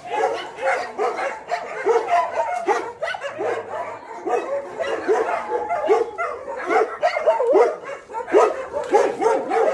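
Many dogs at a boarding kennel barking together, a continuous overlapping din of short barks with no let-up.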